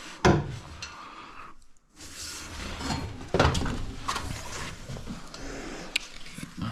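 Scattered knocks and light clinks from parts and tools being handled, with a sharp knock near the start, another about three and a half seconds in, and a bright click near the end.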